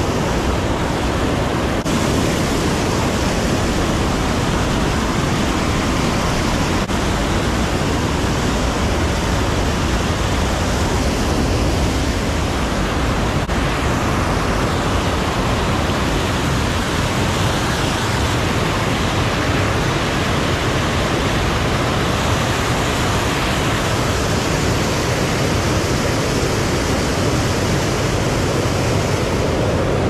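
White water pouring over a river dam's spillway, a loud, steady rush that stays even throughout.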